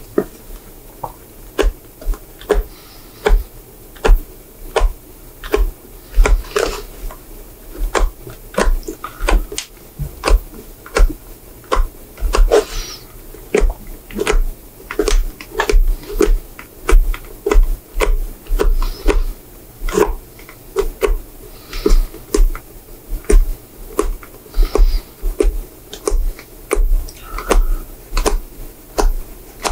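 Old welt stitches being picked, cut and pulled out of a Goodyear-welted leather shoe, heard as a run of short, sharp snaps and clicks, about one to two a second.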